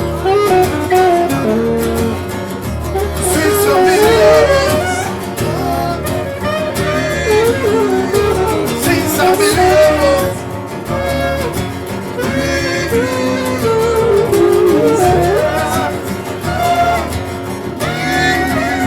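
A song playing: a singer's melody over instruments and a steady bass beat.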